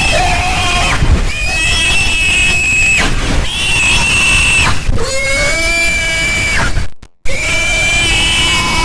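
Domestic pig squealing, a run of long, loud, high-pitched squeals one after another, each about one to two seconds, heavily bass-boosted and distorted into a constant low rumble. The sound cuts out briefly about seven seconds in.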